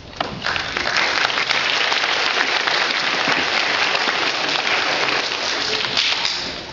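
Audience applauding: dense clapping that starts abruptly and dies away near the end.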